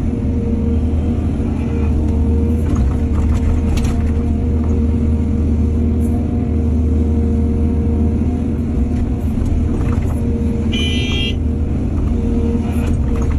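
Heavy diesel excavator engine running steadily under load, with a few scattered knocks and clanks. A brief high-pitched squeal comes about eleven seconds in.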